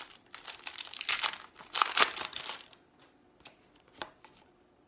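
Baseball card pack wrapper being torn open and crinkled for about two and a half seconds, loudest near the end of the tear. It is followed by a few soft clicks of the cards being handled.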